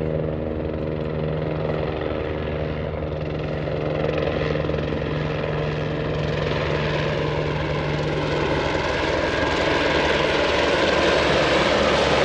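Light propeller aircraft engine running steadily, its roar building and growing louder over the second half.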